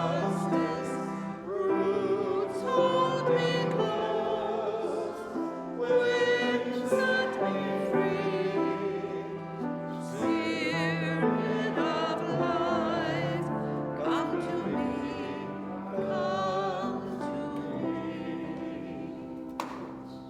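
Music: a classical-style solo voice singing with wide vibrato over sustained instrumental accompaniment, growing quieter near the end.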